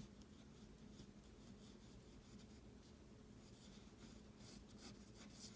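Faint scratching of a drawing tool on paper: a few short strokes, the strongest near the end.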